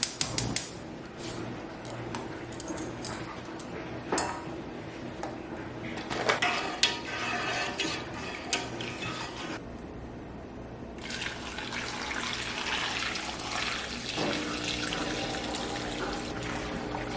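A few clinks of kitchen utensils and dishes, then, from about eleven seconds in, a kitchen tap running water steadily into a sink.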